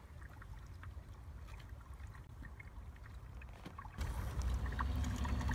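Faint water sounds from a shallow stream with a low rumble underneath; the rumble gets louder about four seconds in.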